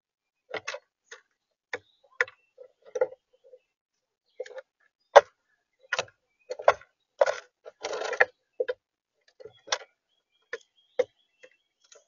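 Common grackle pecking and rummaging in seed on a plastic bird-feeder tray, close to the feeder's microphone. Its beak makes irregular sharp taps and clicks, and a longer scratchy rustle of shifting seed comes a little past the middle.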